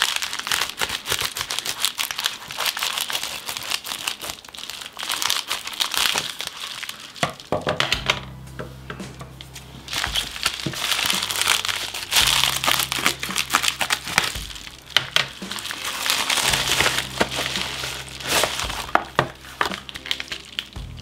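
Plastic bubble mailer crinkling and rustling in irregular bursts as it is torn open by hand and its contents pulled out.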